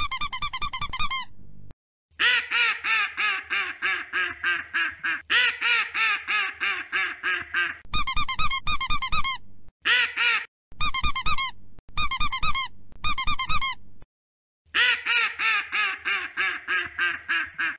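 Duck quacking in rapid runs of nasal quacks, about eight a second, broken by short pauses. The pitch slides gently down across the longer runs.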